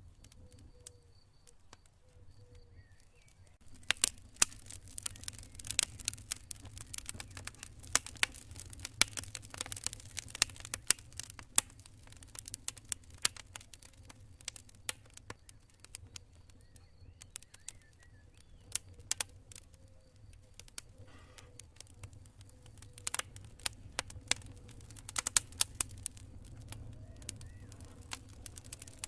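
Campfire crackling, with many sharp pops and snaps that start suddenly about four seconds in and carry on thickly, with a few louder pops. Crickets chirp in short pulses underneath, clearest before the crackling starts, over a low steady rumble.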